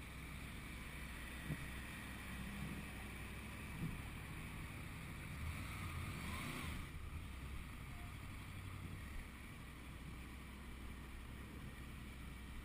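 Honda VFR800 V4 engine running at low road speed, heard muffled through a helmet-mounted camera's microphone with wind buffeting. A steady low hum sits under the noise throughout.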